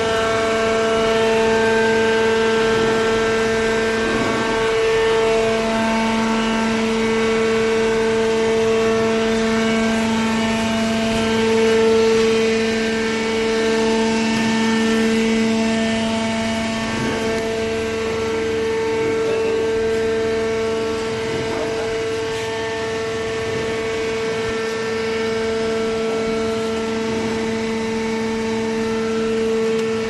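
Hydraulic baler's power unit running: the electric motor and pump give a steady, pitched mechanical hum that holds at an even level throughout.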